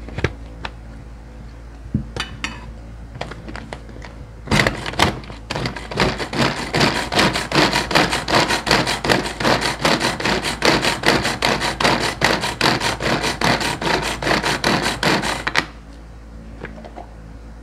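Manual pull-cord food chopper mincing garlic cloves: a few plastic clicks as the lid is fitted, then about ten seconds of rapid, even clattering as the cord is pulled again and again and the blades spin through the garlic, stopping abruptly.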